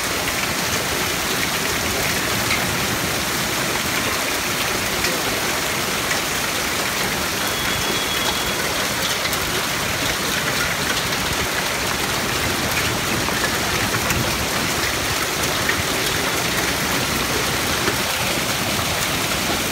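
Hail and heavy rain pelting a wet paved street, a steady dense hiss peppered with small ticks of hailstones.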